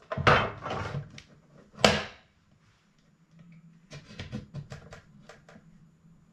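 Plastic snap-fit clips of a Xiaomi Mi Smart Youth projector's shell popping loose as a plastic guitar pick pries along the seam: two sharp, loud pops in the first two seconds, then a run of small clicks a few seconds later.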